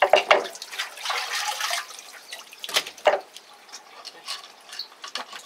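Water splashing and dripping, with two knocks: one right at the start and another about three seconds in.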